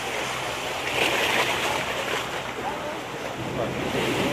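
Sea waves washing in, with wind blowing on the microphone; the rush of water swells about a second in and again near the end.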